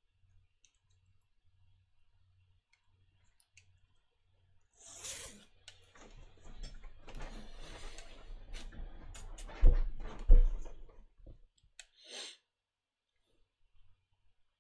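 A person shifting about at a desk close to the microphone: rustling and shuffling with scattered clicks, starting about five seconds in. Two heavy thumps about half a second apart come near ten seconds, then a brief rustle.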